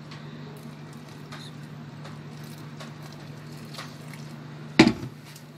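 A gloved hand working flour in a bowl while warm water is poured in, with soft squishing and rustling over a steady low hum. A single sharp knock comes near the end.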